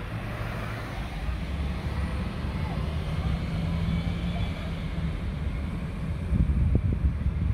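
School bus engines rumbling low as the buses drive past, with a steady drone for a few seconds in the middle and a louder, rougher stretch near the end.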